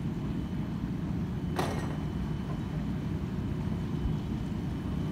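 Hydrogen fuel-cell boat's electric drive running as it approaches: a steady low rumble, with one sharp click about a second and a half in.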